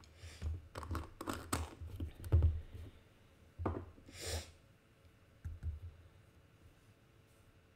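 Light clicks and knocks from art supplies and paper being handled on a desk, with a short rustle about four seconds in and a couple of soft thumps after it.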